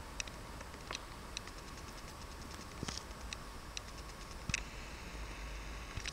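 Mikrosa SASL 5 CNC machine standing with its drives powered: a steady low hum under a faint steady whine, with about seven sharp clicks at irregular intervals. A second, higher whine comes in near the end.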